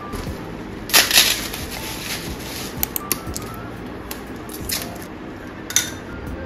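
Rustling and handling noises during household chores, with a loud rustle about a second in and a few clicks and short bursts after it.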